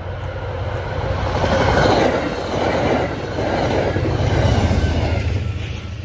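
CTrail passenger train passing at speed close by: a rush of steel wheels on rail over a low rumble, swelling in three surges as the cars go by, then fading near the end.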